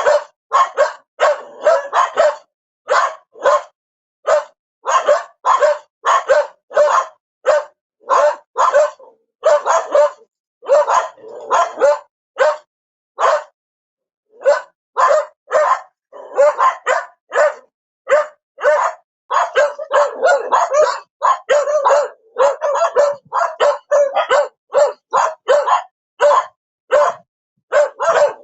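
A dog barking over and over in short, sharp barks, often several a second. There is a pause of about a second midway, and the barking comes faster and denser after it.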